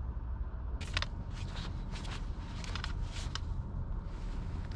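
A run of short clicks and rattles from a fishing rod and reel being handled, over a steady low rumble.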